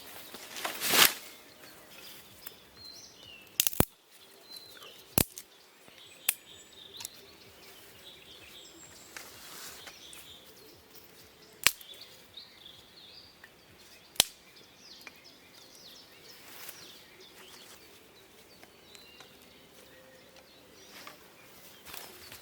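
Forest ambience with birds chirping faintly, a brief rustle about a second in, and a handful of sharp, isolated cracks or clicks.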